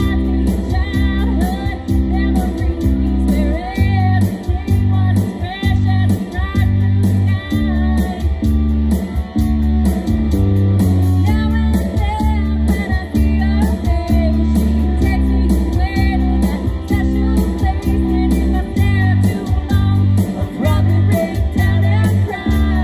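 Live 1980s cover band performing a rock song: a woman singing lead over electric guitars and drums with a steady beat.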